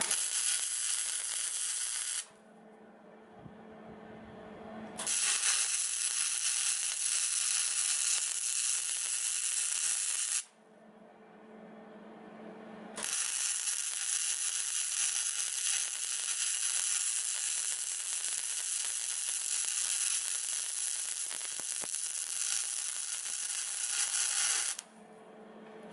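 Flux-core wire-feed welder arc crackling and hissing in three runs: a short one, one of about five seconds, and a long one of about twelve seconds. A low steady hum fills the pauses between them.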